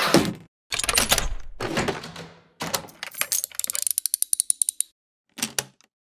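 Cartoon sound effects: two crashing hits, then a rapid run of sharp mechanical clicks, about eight a second for some two seconds, and one short clack near the end.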